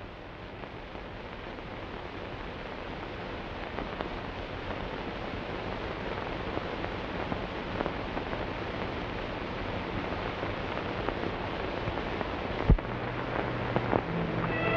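Steady hiss that slowly grows louder, with one sharp click near the end: the surface noise of an old optical film soundtrack during a stretch without dialogue or music.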